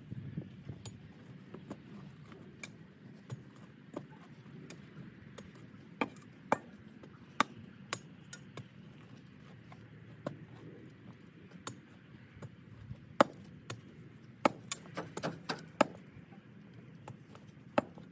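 Flat-bladed spade digging into sod and soil, irregular sharp clicks and knocks as the blade strikes the ground and small stones, with a cluster of quick knocks near the end.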